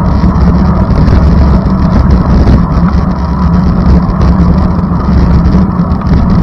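Steady, loud rumble of a moving vehicle in motion, with engine and road noise and no break or change.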